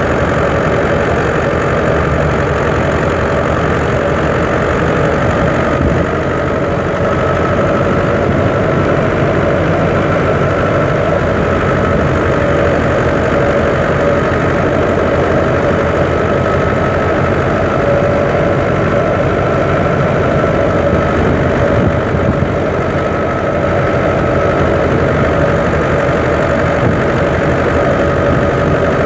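Fiat 640 tractor engine driving a wheat thresher, running steadily under load. The machinery gives a continuous rumble with a steady whining tone over it that drifts slightly in pitch.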